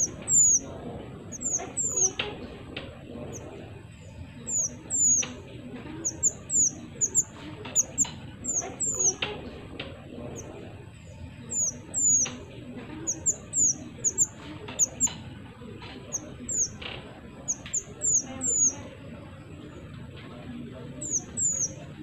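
Mantenan songbird calling a rapid, irregular string of short, very high chirps, each sweeping downward, often in quick pairs or triplets, mixed with sharp clicks.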